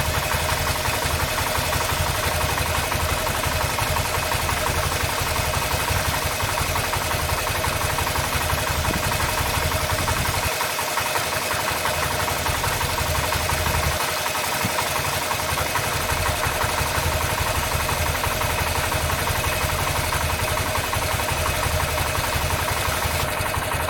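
Honda CB125F's single-cylinder 125 cc engine idling steadily; its low rumble thins out briefly twice, about ten and fourteen seconds in.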